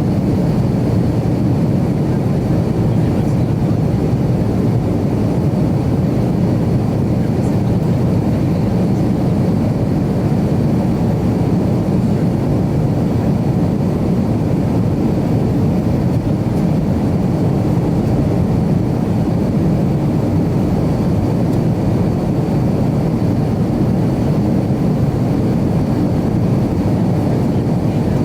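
Steady cabin drone of an Avro RJ100 jet airliner, its four turbofan engines and the airflow heard together from a passenger seat, with a faint high steady whine on top.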